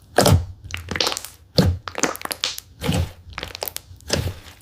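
Thick slime packed with small plastic beads crunching and crackling as it is pressed and squished, in about seven separate crunches less than a second apart.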